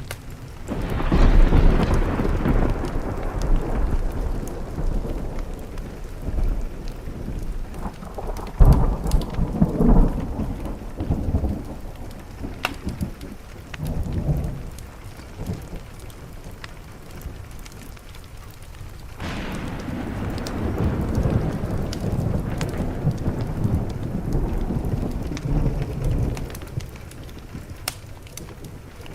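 Thunderstorm: rolling thunder over steady rain, with a peal about a second in, a sharper burst around nine seconds and a long rumble starting near two-thirds of the way through. Faint scattered crackles of a wood fire run underneath.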